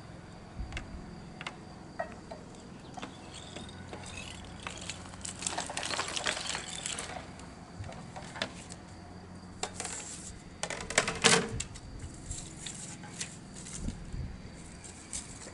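Clicks, knocks and scrapes of a Paperfox H-500A roller die cutter being worked by hand, as a cover plate is laid on the wooden die board and the board is pushed through the rollers. A cluster of louder knocks comes about eleven seconds in.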